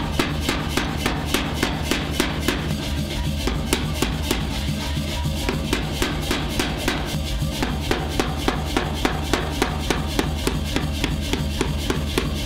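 Power hammer striking a glowing steel bar on the anvil die in rapid, even blows, drawing out the arm of a pickaxe. Music with a drum beat plays alongside.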